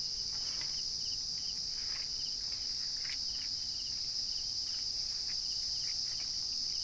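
Insects chirring in a continuous high-pitched drone, with a fainter short chirp repeating a few times a second beneath it.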